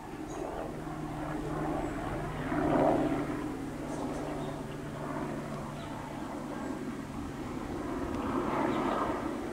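Eurocopter AS350 B2 Astar helicopter flying overhead: a steady low hum under the rush of its single turbine engine and three-blade main rotor. It swells loudest about three seconds in and again near the end.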